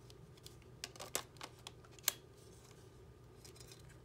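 A lens being fitted and twisted onto a mirrorless camera's mount, held in a metal cage: a handful of short sharp clicks from about a second in, the sharpest about two seconds in, then a few faint ticks near the end.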